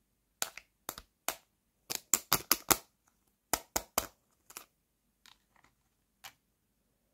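Hard plastic toy food pieces, a cheese slice and salami rounds, clicking and tapping against each other as they are handled. The clicks are sharp and separate, with a quick run of them about two seconds in and fainter, sparser ones after.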